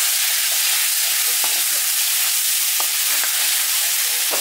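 Liquid sizzling and boiling off in a hot black iron kadai, a steady loud hiss, while a long metal ladle stirs it, scraping and clinking against the pan a few times.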